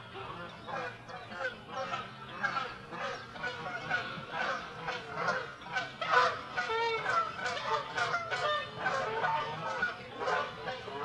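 Canada geese honking, several birds calling over one another in a continuous run of repeated honks.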